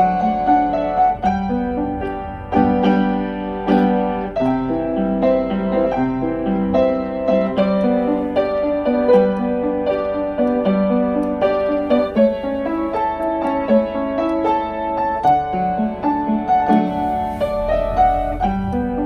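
Background music: a gentle piano piece, notes and chords played continuously.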